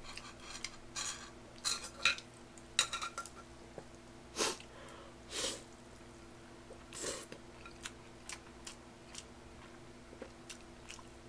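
Metal chopsticks clicking and scraping against a saucepan while noodles are mixed and lifted, with a few short slurps in the middle. A faint steady hum runs underneath.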